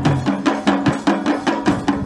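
Traditional ngoma drums played in a fast, even rhythm of about five strokes a second, each stroke a sharp click over a pitched drum tone.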